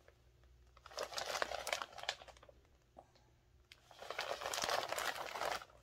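Biodegradable plastic mailer bag crinkling as it is handled and turned over, in two spells of rustling.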